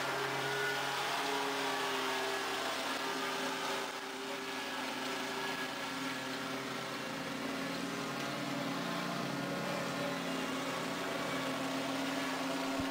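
Commercial walk-behind lawn mower engine running steadily under cutting load, a slight dip in level about four seconds in.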